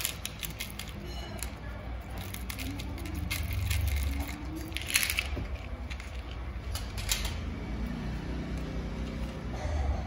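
Small coloured pebbles poured from a plastic box, clicking and clattering onto artificial grass in scattered bursts, loudest about five seconds in.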